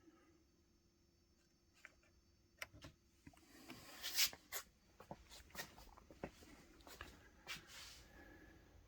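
A run of light clicks and knocks with some rustling, loudest about four seconds in, in a small enclosed space.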